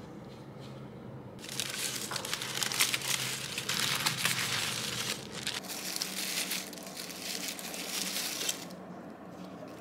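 Tissue paper and crinkle-cut shredded paper filler crinkling and rustling as hands pull wrapped items out of a package. The crinkling starts about a second and a half in and dies down about a second before the end.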